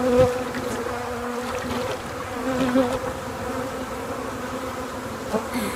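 Swarm of honey bees buzzing in the air, a steady drone that wavers slightly, as package bees are shaken loose from their can. A brief knock sounds just after the start.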